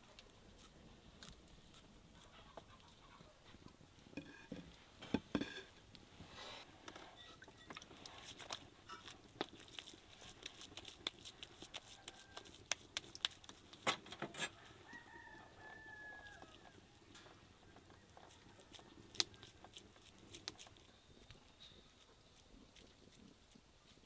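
Scattered light clicks and taps, and a chicken clucking once about fifteen seconds in.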